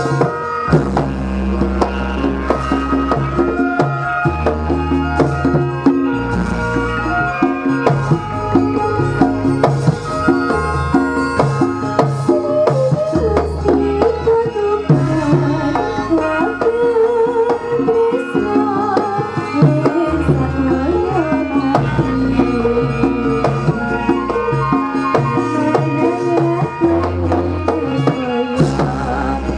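Javanese gamelan music with hand-drum (kendang) strokes and deep low notes recurring every couple of seconds. A woman sings over it into a microphone through the later part.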